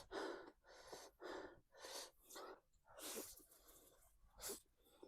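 Quiet, breathy mouth sounds of a person eating: a run of about eight short slurps and sharp breaths.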